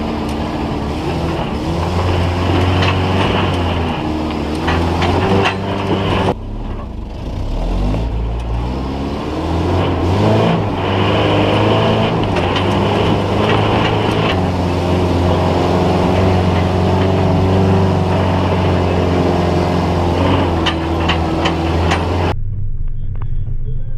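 Off-road 4x4's engine revving up and down as it works over rocks, its pitch rising and falling. The sound breaks off sharply twice, about six seconds in and near the end.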